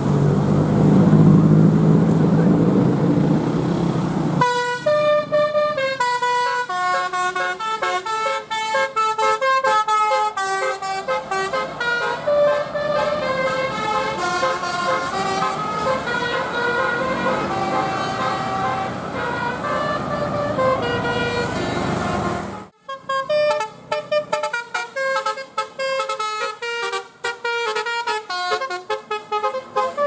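Indonesian bus 'telolet basuri' musical horn playing a quick melody of short stepped notes, after a few seconds of engine and traffic rumble. The tune breaks off sharply about two-thirds of the way through, then starts up again.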